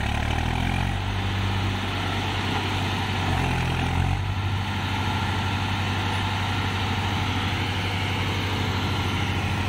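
Swaraj 735 FE tractor's three-cylinder diesel engine running steadily under load, pulling a loaded sand trailer up a muddy slope.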